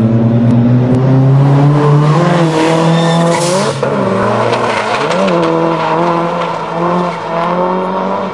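Drift cars' engines revving hard through a sideways slide, pitch climbing and dipping as the throttle is worked, over the hiss of tyres squealing. There is a brief louder rush of hiss about three and a half seconds in.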